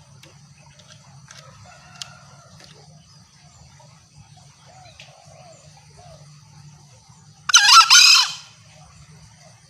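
Green junglefowl crowing once, about three quarters of the way in: a short, hoarse two-part call lasting under a second, over a steady high drone of insects.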